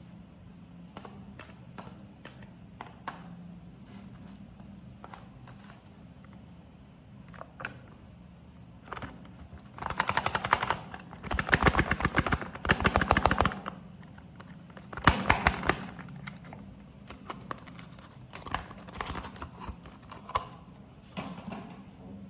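Soap packaging being handled and torn open: scattered clicks and rustles, with a long burst of rapid crackling about ten seconds in and a shorter one about five seconds later.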